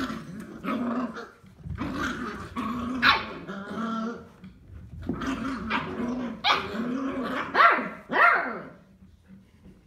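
Seven-week-old beagle puppies play-growling and yapping: a near-continuous wavering growl broken by sharp yips, several close together in the second half, then it stops about a second before the end.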